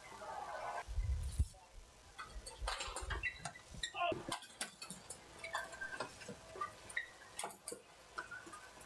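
Badminton play on an indoor court: sharp racket hits on the shuttlecock, several irregular clicks, with the squeak of shoes on the court and a few low thuds of footfalls.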